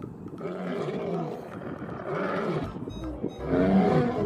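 Male lion roaring: three rough calls in a row, each under a second long.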